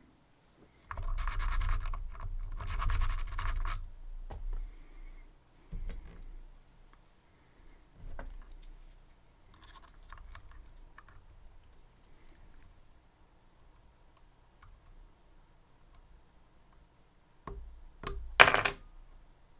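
Metal lock-pick rake scraping in and out of the keyway of a Medeco M3 lock in two scratchy bursts, followed by faint scattered ticks of the pick against the pins and one sharp click near the end.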